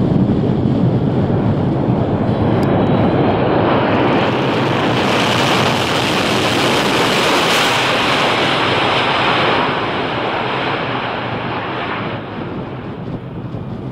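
A C-17 Globemaster III's four jet engines running loud in reverse thrust during its landing roll: a steady rushing noise that grows harsher and hissier around the middle, then eases off over the last few seconds.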